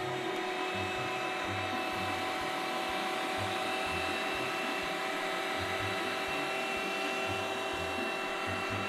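Professional electric meat grinder running steadily with a constant motor whine, with irregular low rumbles underneath as a stretchy rubber toy figure's leg is forced into its feed tube.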